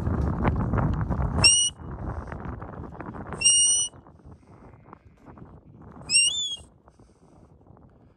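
Shepherd's whistle commands to a working border collie: three short, high whistle blasts about two seconds apart, the third bending in pitch. Under them a low rushing noise, heaviest in the first second and a half.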